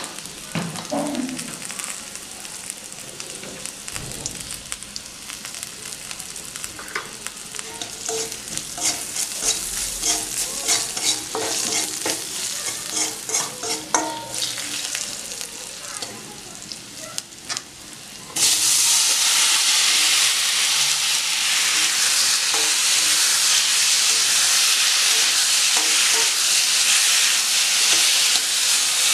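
A metal spatula scrapes and stirs in a wok while garlic and spices fry in oil, with many quick scraping strokes over a light sizzle. About two-thirds of the way in, a much louder, steady sizzle starts suddenly as pumpkin and potato pieces fry and are stirred in the oil.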